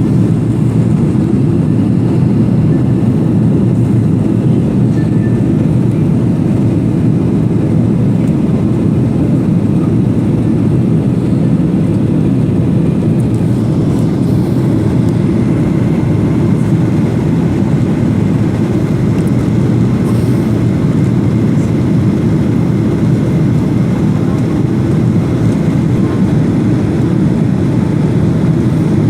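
Steady low rumble of a jet airliner's passenger cabin in flight, an even unbroken drone with no distinct events.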